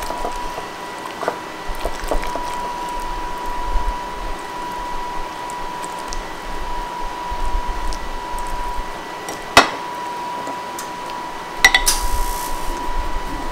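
Kitchen handling sounds as burritos are filled, rolled and set in a baking pan: soft scattered clicks and rustles, a sharp clink about two-thirds of the way through and a brief clatter near the end, over a steady thin high whine.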